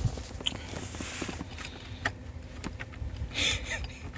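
Scattered light clicks and knocks of hands handling loose plastic car interior trim, with a brief rustle a little over three seconds in.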